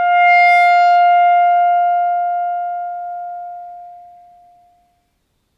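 A clarinet holds a single final note that starts full and then fades smoothly to nothing over about five seconds: a decrescendo ending, the note let die away rather than cut off.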